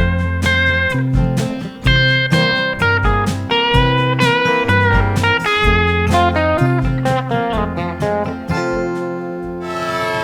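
Acoustic flat-top guitar and electric Telecaster playing instrumental country blues: picked melody notes with string bends over a steady run of bass notes. Near the end the playing settles into held ringing notes and a rushing noise swells in.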